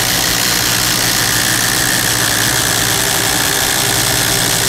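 Two Makita impact drivers, a 40-volt and an 18-volt, hammering together as they bore into wood with 25 mm wood drill bits: a loud, continuous impact rattle and motor whine.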